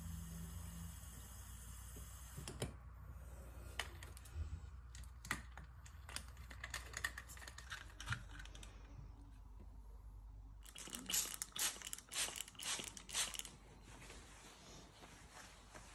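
A kitchen tap runs into a glass bottle for the first couple of seconds. Then come scattered small clicks and knocks as a trigger-spray head is fitted to the amber glass bottle. A little over ten seconds in, there is a quick run of about eight sharp trigger-spray squirts.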